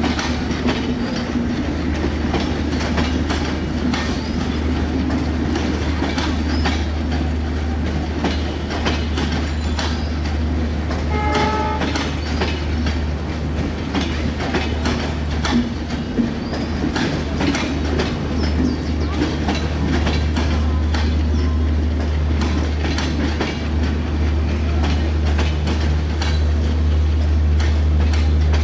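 Passenger coaches of an intercity express train rolling past as it pulls away from the station, their wheels clicking over the rail joints above a steady rumble. A brief pitched tone sounds about eleven seconds in.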